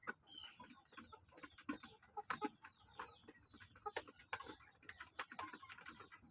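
Chickens clucking softly, mixed with many light, irregular ticks and clicks.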